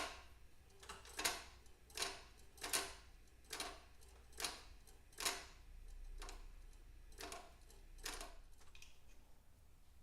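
1951 Vincent Rapide kickstarter lever being worked, snapping back against its newly fitted return spring with a series of sharp metallic clacks, about one every three-quarters of a second with a short pause about halfway.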